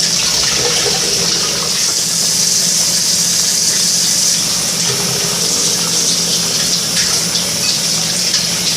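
Water running steadily from a faucet into a cup that holds a frozen block of ice.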